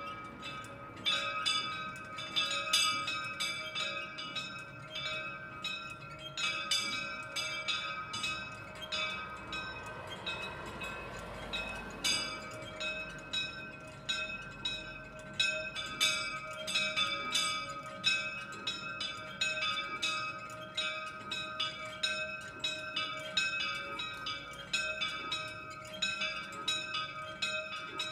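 Two swinging church bells, tuned to D-flat and E-flat, ringing together by hand in a full peal: a rapid, irregular stream of strikes, several a second, with the two tones overlapping and sustaining. Heard from inside the chapel, this is the plenum calling to the rosary before the evening Mass.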